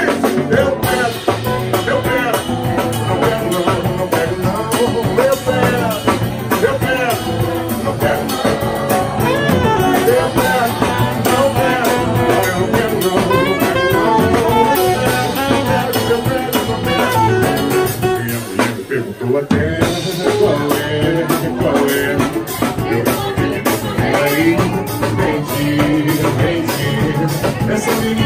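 A small live samba-rock band playing, with saxophone, guitar and drums. The band drops out briefly about two-thirds of the way through, then comes back in.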